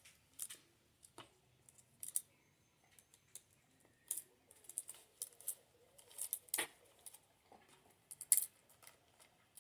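Loose chainsaw chain clinking and rattling as it is handled and fitted back around the bar: scattered sharp metallic clicks, the loudest about six and a half and eight seconds in.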